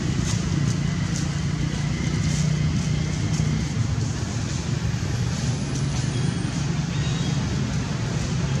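Steady low engine rumble, with faint scattered ticks above it.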